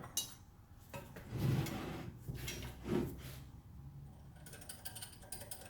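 Metal parts of an old cast-iron drill press being handled and worked loose: a click, a scraping slide, a dull knock about three seconds in, then faint light rattling.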